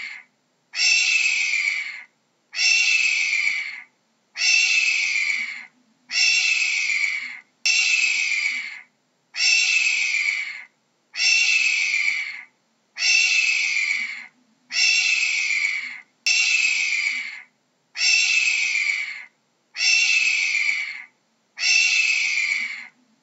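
Hawk screaming again and again, evenly spaced about every 1.7 seconds. Each scream lasts just over a second and falls slightly in pitch.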